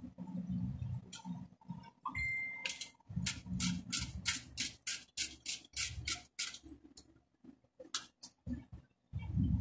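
Vacuum cleaner motor being taken apart by hand: dull knocks and rubbing of the housing and parts, then a quick even run of sharp clicks, about five a second, for a few seconds in the middle.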